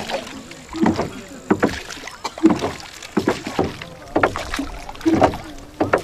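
Oars of a rowed boat pulling through the water in a steady rhythm, a splashing stroke roughly every three quarters of a second.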